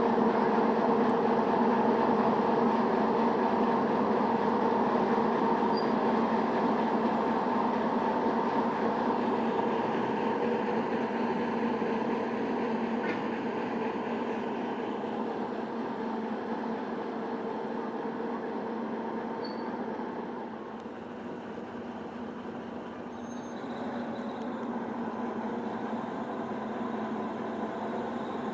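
Small diesel shunting locomotive running at low speed, a steady engine hum with held tones that slowly fades as it moves away.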